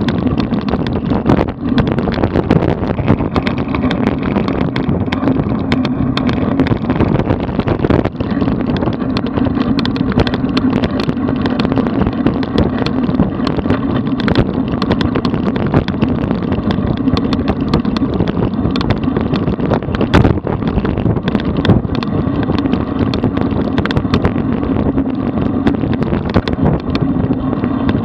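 Wind rushing over the microphone of a bike-mounted camera on a road bicycle moving at speed, over a steady rumble of tyres on the road. Frequent small knocks from road vibration run through it.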